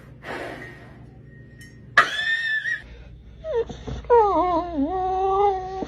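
An animal whining: a short, sudden high cry about two seconds in, then a long wavering whine held for nearly two seconds near the end.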